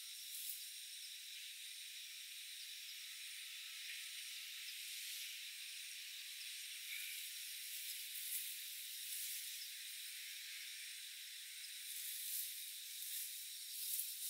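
A steady, thin, high-pitched chorus of insects with no low end. Over it come faint rustles and steps in tall grass as a backpack is slipped off and set down, busier near the end.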